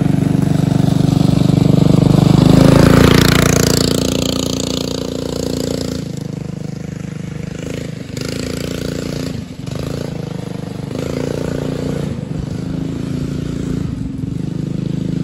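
Buggy's single-cylinder Duromax 7 hp small engine running at high revs as the buggy drives laps. It is loudest about two to three seconds in as it passes close, then fades and swells as it moves away and comes back round, with two brief dips midway.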